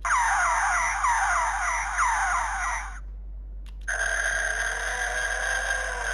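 Electronic sound effects from a DX GUTS Sparklence toy transformation device, played through its small speaker: a run of quick falling chirps for about three seconds, a short pause with a click, then a steady held electronic chord.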